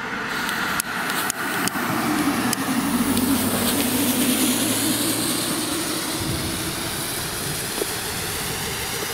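Three Blackboxx Vesuvio No.1 cone fountains hissing as they burn, the rush building over the first few seconds as each one catches and then holding steady. A few sharp clicks in the first two seconds.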